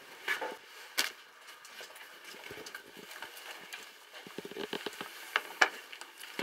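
Scattered light clicks and taps from a camera strapped to a dog as the dog moves about on a tiled floor. There is a sharp knock about a second in, and a quick run of taps between about four and five and a half seconds in.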